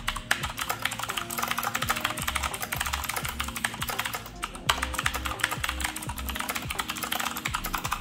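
Corsair K70 MK2 mechanical keyboard with Cherry MX Blue switches typed on fast: a dense run of loud, clicky keystrokes, with a brief pause a little past halfway.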